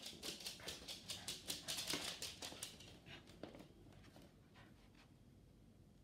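A small dog's claws clicking on a laminate floor as it trots about, rapid light taps that thin out and stop after about three and a half seconds.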